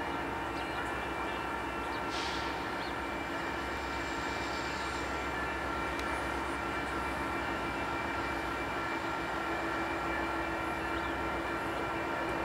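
Union Pacific diesel freight locomotives approaching from a distance: a steady low engine drone with several steady whining tones over it.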